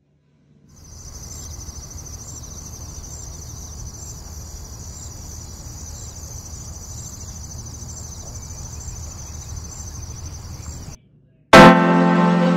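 Insects chirping, a steady high-pitched trill with a faint low rumble underneath. It cuts off about eleven seconds in, and music starts half a second later.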